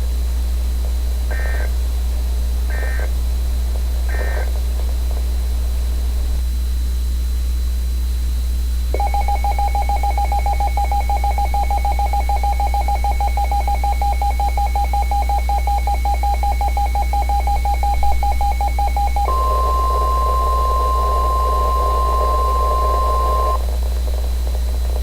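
Emergency Alert System tones: three short squawks of SAME data bursts about a second and a half apart, then a pause of a few seconds, then a pulsing, raspy attention tone for about ten seconds. This gives way to a higher, pure, steady tone, the NOAA Weather Radio 1050 Hz warning alarm, for about four seconds before it cuts off.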